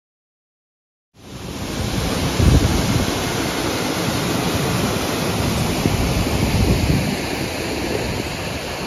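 Waterfall rushing loudly and steadily. It starts after about a second of silence, with deeper rumbles swelling about two and a half seconds in and again around six to seven seconds.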